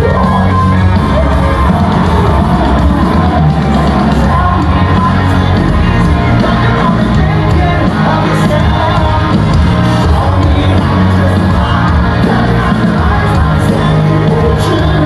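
A rock band playing live in a large hall, loud and steady, with lead vocals over heavy bass and drums, and the crowd shouting along.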